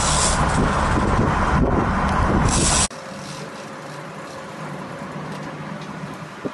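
Loud steady rush of wind and boat engine noise. About three seconds in it drops abruptly to a quieter, steady hum of the boat's engine.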